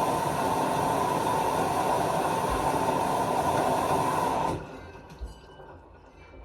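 Washing machine running with a steady, loud rushing noise that cuts off suddenly about four and a half seconds in, followed by a few faint low knocks.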